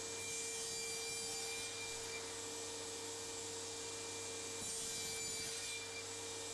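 DeWalt DCS7485 cordless table saw running with a steady whine, its blade cutting through a board twice as short pieces are crosscut.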